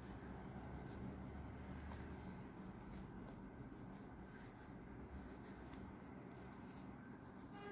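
Faint rustle and light ticks of yarn being worked with a crochet hook while a puff stitch is made, over a low steady room hum.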